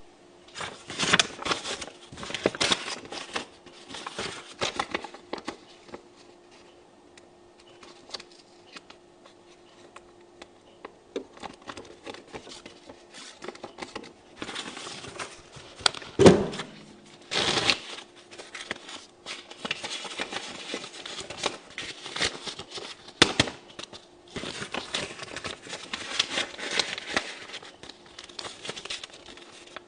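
Euro banknotes being counted and crinkled by hand: irregular papery rustling, crackling and snapping in bursts with short pauses, the loudest crackles about halfway through. A faint steady hum runs underneath.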